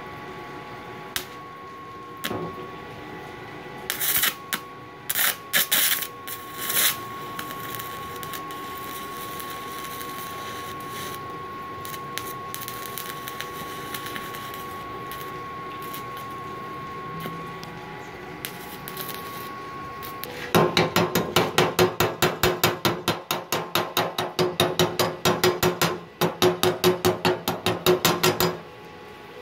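Stick arc welding on cast iron with a cast-iron electrode at 60 amps: a few sharp crackles as the arc is struck about four seconds in, then the arc burning with a steady, smooth hiss and a faint high whine until about twenty seconds in. Then rapid sharp metal tapping, about three strikes a second, as the slag is knocked off the fresh weld with pliers.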